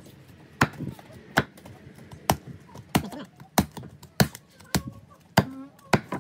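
A blade chopping crosswise through a spit-roasted whole pig: about ten sharp blows in a steady rhythm, roughly two-thirds of a second apart.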